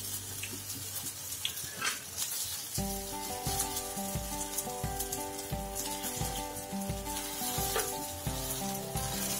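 Sago patties (sabudana vadas) sizzling as they shallow-fry in a little oil on a flat griddle (tawa), with a few light scrapes of a wooden spatula. Background music with a steady beat comes in about three seconds in and plays over the sizzle.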